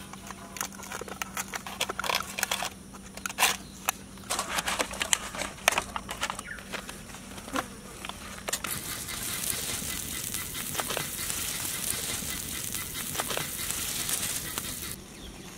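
Aluminium foil crinkling and clicking as foil containers are handled and their lids pressed shut. Then, about halfway through, a steady sizzle starts as butter melts and bubbles on a hot foil-covered griddle, cutting off suddenly near the end.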